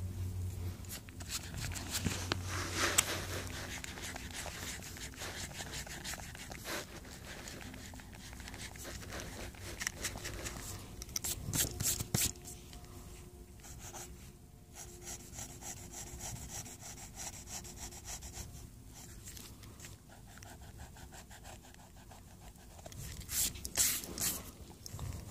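Pencil and paper rubbing and scratching close to the microphone, with louder rustles of the paper a couple of seconds in, around the middle, and near the end.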